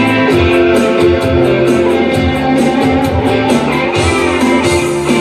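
Instrumental intro of a pop-rock song: guitar over a bass line and a steady beat of about four high ticks a second, with no singing yet.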